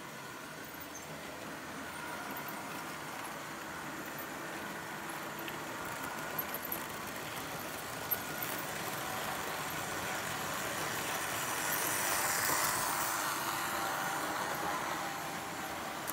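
Märklin H0 model train running on K-track: a steady electric-motor whine and the rolling of wheels and coaches, swelling to a peak about three-quarters of the way through as the train passes close, with a few light clicks near the middle.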